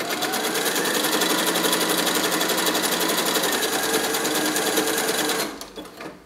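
Janome electronic sewing machine stitching a zigzag over a cord at a steady speed, needle mechanism running in a fast even rhythm, then stopping about five and a half seconds in.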